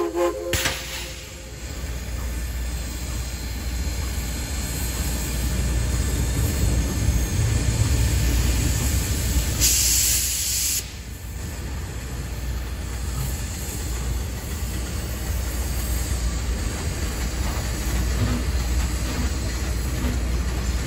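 Train hauled by steam locomotive 4501 running with a steady low rumble. About ten seconds in, a sharp hiss cuts in for about a second.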